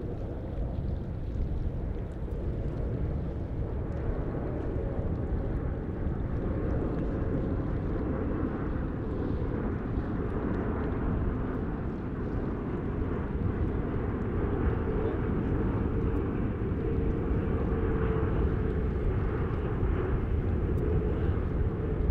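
Boeing 777-300ER on approach to land, its twin GE90 turbofan engines giving a low steady rumble with a faint whine, growing gradually louder as the jet comes closer.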